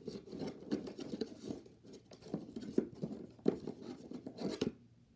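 Hands rummaging through a cardboard box of fidget toys: irregular rustling, scratching and small knocks, which stop shortly before the end.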